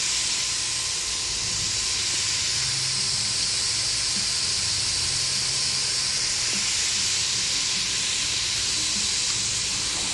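Steady hiss of water forced out as a fine mist from the nozzles of a hand-held spray boom fed by a power sprayer.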